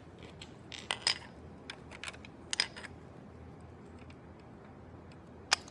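Plastic Lego pieces clicking and tapping as they are handled and pressed together: scattered sharp clicks, the loudest one near the end.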